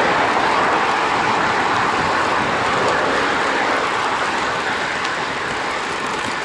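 Steady rushing noise of a road bike ridden at speed beside a highway: tyres on the paved path, wind and passing traffic, easing off slightly toward the end.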